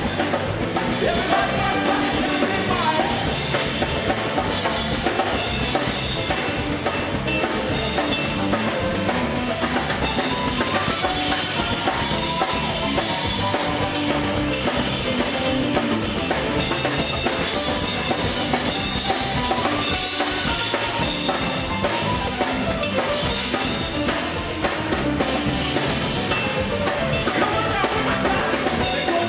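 Live gospel band music with a drum kit beat to the fore and voices singing over it.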